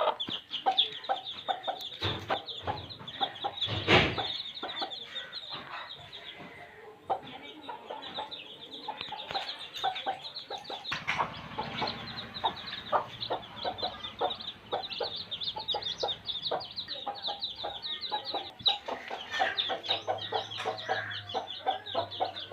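Baby chicks peeping continuously: many short, high cheeps overlapping, with lower clucks from a hen mixed in. A couple of sharp knocks about two and four seconds in.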